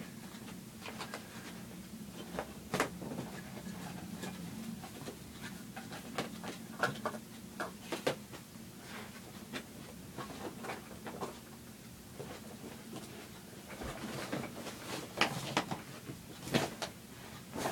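Rummaging through belongings: scattered light knocks, clicks and rustling at an irregular pace, with a few sharper knocks now and then, the busiest stretch near the end.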